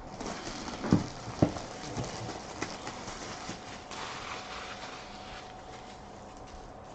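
A cardboard hobby box and its packaging being handled and opened: a few sharp knocks in the first two seconds, then rustling that fades.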